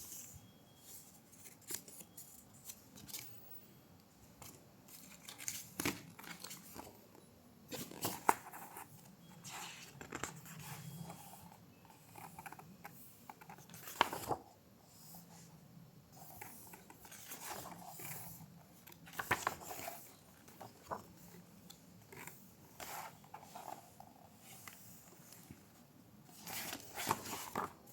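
Irregular light rustling, clicks and taps of paper packaging and small items being handled and opened, with an occasional short tearing or snipping sound.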